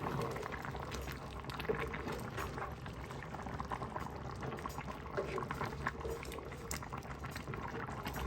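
A pot of thick blended spinach soup boiling, bubbling and popping steadily.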